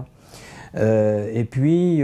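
A man's voice: after a short pause, a drawn-out hesitation sound held on one pitch, then the start of his next words.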